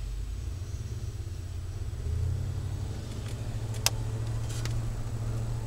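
Exhaust of a 351 Windsor V8 through a Flowmaster Delta Flow 50 series muffler, heard inside the van's cabin as a steady low drone that swells a little about two seconds in. A few sharp clicks or rattles come near the middle, the loudest a little before four seconds in.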